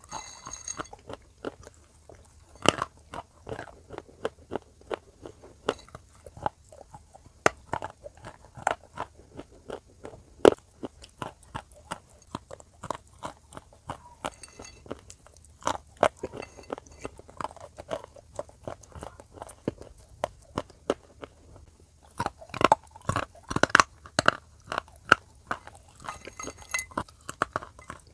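Close-up crunching of lumps of grey-green clay being bitten and chewed: many sharp, irregular crunches, a few a second, coming thickest for a few seconds near the end.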